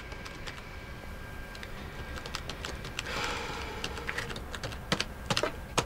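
Typing on a laptop keyboard: scattered key clicks, sparse at first and coming quicker and louder in the second half.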